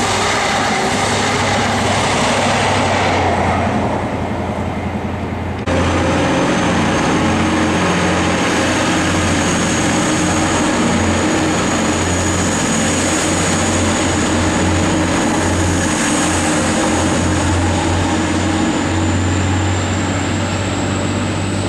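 A passenger train running past briefly. Then, after a sudden cut, a Class 180 diesel multiple unit's engines idle at the platform with a steady low drone and a thin high whine that creeps up in pitch near the end.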